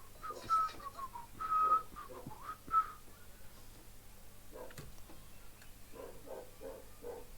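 A person whistling a short tune: a few brief high notes in the first three seconds, then only faint low vocal sounds.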